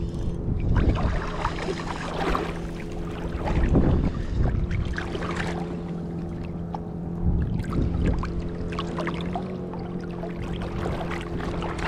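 A boat's motor running steadily at an even low pitch, with irregular rushing noise over it that swells louder about a second in, at four seconds and at eight seconds.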